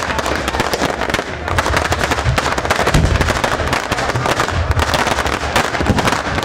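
A dense barrage of fireworks and firecrackers going off without a break: rapid, overlapping bangs and crackling, with deep booms underneath.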